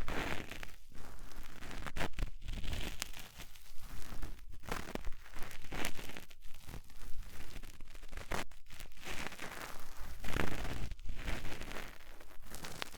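Ear-cleaning sounds in a 3Dio binaural microphone's ear: a tool rubbing and scraping close inside the ear canal, in uneven rustling strokes.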